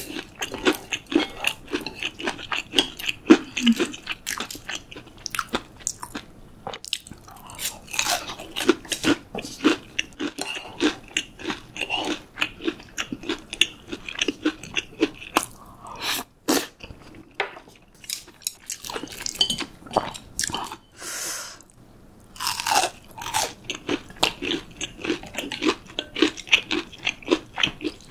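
Close-miked chewing with frequent crisp crunches: a breaded, deep-fried pork cutlet being eaten with curry rice, the crust crackling with each bite.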